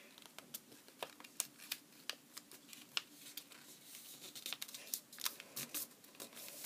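A sheet of origami paper being folded and creased by hand: faint, irregular crinkles and small crackling ticks of the paper as it is bent and pressed flat.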